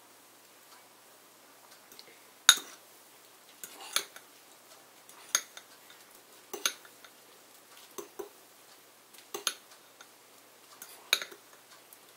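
Fork clinking against the bowl while stirring ramen noodles and seasoning, with about seven sharp clinks, roughly one every second and a half.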